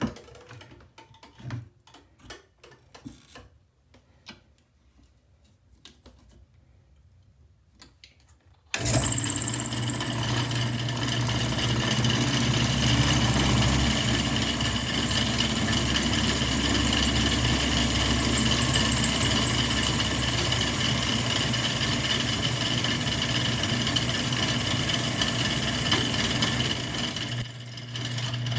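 A few light handling clicks, then about nine seconds in a drill press motor starts abruptly and runs steadily with a steady whine, drilling out a stripped scope-base screw. It dips briefly near the end and starts again.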